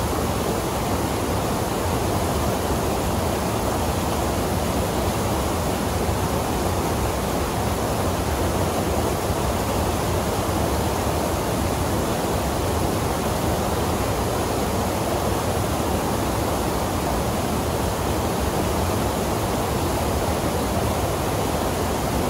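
Waterfall and river rapids pouring steadily over rocks into a pool: a continuous rush of water at an even level throughout.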